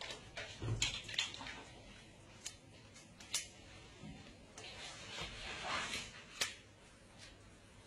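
Metal door chain lock being worked loose by hand, clinking and clicking against its slide track: several sharp clicks, with a longer scraping rub past the middle.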